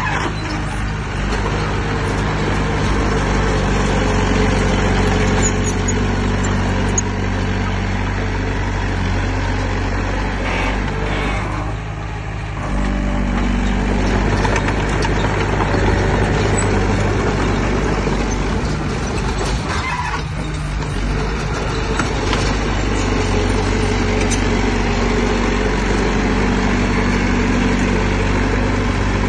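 Heavy earthmoving machine's diesel engine running steadily under load. The engine note eases briefly about twelve seconds in, then picks up again.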